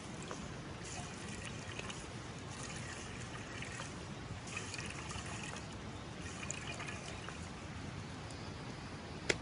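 Liquid trickling: a steady watery hiss with scattered faint ticks and one sharp click near the end.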